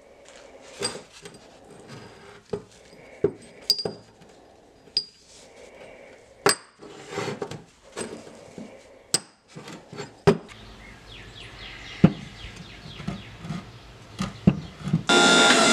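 Cut pieces of a steel Damascus billet being handled and stacked: a dozen or so sharp metal clinks and knocks, some with a brief high ring. Music comes in just before the end.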